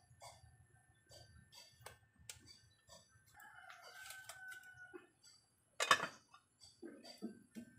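A rooster crows once, held for about a second and a half in the middle. Just before that, light clicks of a metal spoon in the pot; about six seconds in, a metal pot lid clanks down onto the pot, the loudest sound.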